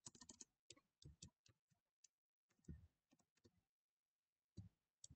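Faint computer-keyboard typing: scattered key clicks in short clusters, with pauses between them.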